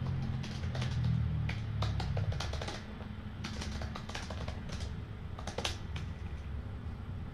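Typing on a computer keyboard: quick runs of key clicks that stop about six seconds in, over a steady low rumble.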